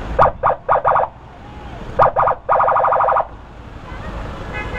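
A vehicle horn sounding in a pattern: four short beeps, then a pause, then a few more beeps that run into a fast stutter for under a second.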